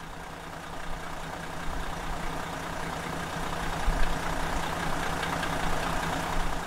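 Heavy vehicle engine running steadily at idle, swelling up over the first few seconds and then holding level.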